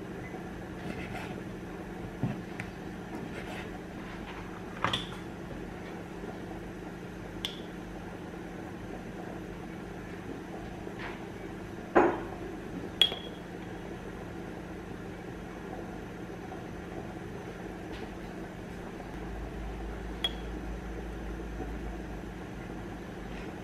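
Kitchen prep sounds: scattered knocks of a knife on a wooden chopping board and light ringing clinks of a metal spoon against a ceramic bowl and glass spice jar, with a heavier knock about halfway through. A steady low hum runs underneath.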